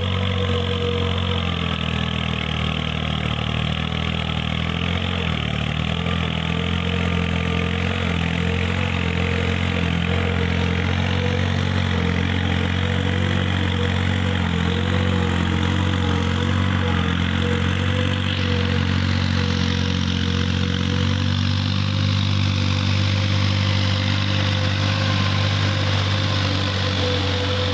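Diesel tractor engine running steadily under load as it pulls a rotary tiller through flooded, muddy paddy ground.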